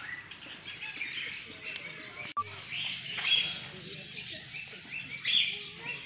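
Many small birds chirping together, a dense overlapping chatter of short high calls, with a brief break in the sound a little over two seconds in.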